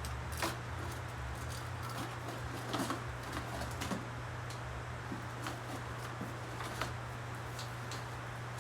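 Steady low electrical hum under scattered light clicks and taps.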